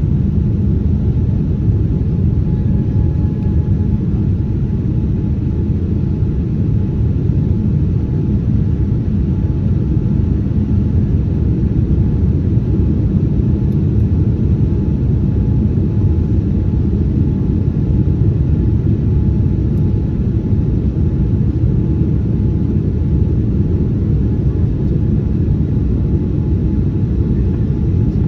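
Steady low rumble of cabin noise inside a Boeing 787-9 descending on approach, with a faint steady whine above it.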